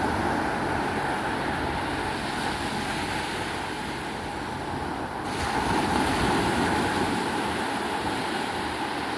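Sea waves washing onto a beach, with wind on the microphone; the surf swells a little louder about five and a half seconds in.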